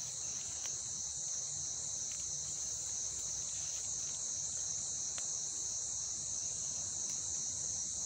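Steady, unbroken high-pitched shrilling of a chorus of forest insects.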